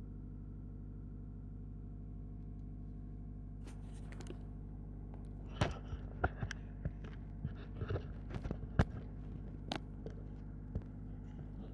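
Mazda3 engine idling steadily at a raised idle speed, noisier than normal: the engine is running its purification cycle, not a fault. From about halfway, a series of sharp clicks and knocks sounds over the hum.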